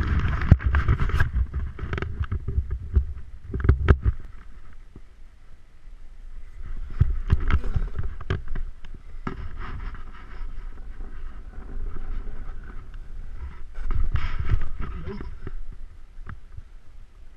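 Snowboard sliding and scraping over groomed snow, swelling louder a couple of times as the board turns, with wind rumbling on the body-mounted camera's microphone. A burst of knocks and clicks in the first four seconds comes from handling the board while seated.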